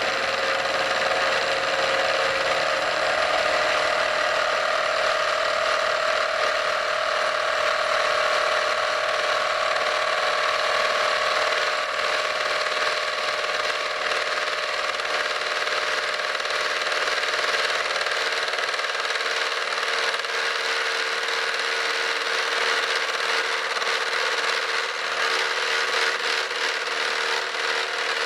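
A metalworking machine tool runs steadily, cutting a groove for a pin into a metal bushing. A few steady tones in the sound drift slowly in pitch.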